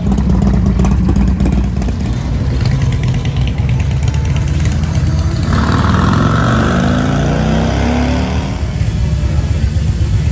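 Motorcycle engines rumbling, with one accelerating from about five seconds in, its pitch rising for a few seconds.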